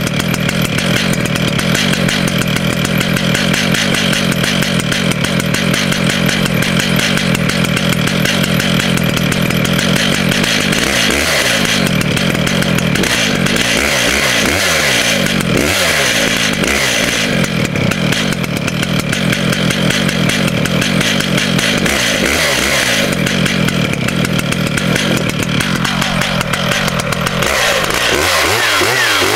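Chainsaw running at high revs; through the middle its engine note repeatedly dips and recovers, as happens when the chain bites into wood. Near the end the note eases off.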